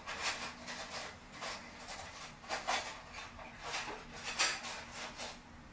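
Scattered short rustles and light knocks from someone moving about and handling things off-camera, about a dozen irregular noises, over a faint steady low hum.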